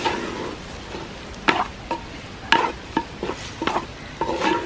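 Wooden spatula stirring chunks of beef in a clay pot, scraping the pot in short strokes about twice a second, over a light sizzle of the meat frying.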